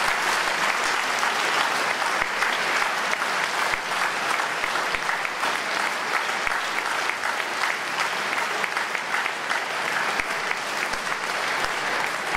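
Audience applauding: dense, steady clapping from many hands, sustained at an even level throughout.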